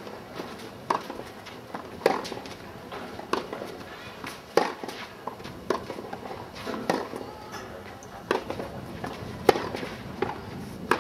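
Tennis rally: sharp pops of the racket striking the ball about once a second, back and forth between the two players, with a few fainter knocks of the ball bouncing on the clay in between.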